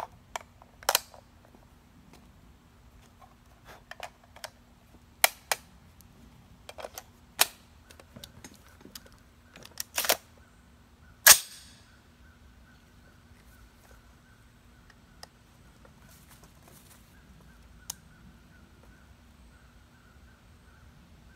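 Metallic clicks and clacks of a 6.5 Creedmoor AR-style rifle being loaded and readied: a magazine seated and the action worked, with the loudest, a sharp ringing clack, about eleven seconds in. A quiet stretch follows as the rifle is shouldered.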